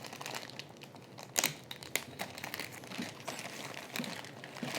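Laptop packaging being handled, crinkling and rustling in short irregular rustles with a few sharper clicks, the loudest about one and a half seconds in, as the laptop is unwrapped.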